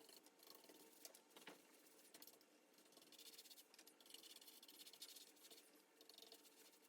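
Near silence, with faint soft scratching from a brush spreading epoxy seal coat over raw black walnut.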